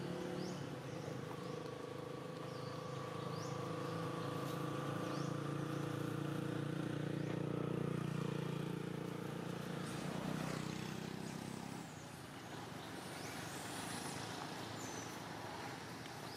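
A motor vehicle engine running with a steady hum, growing louder toward the middle and fading away about twelve seconds in.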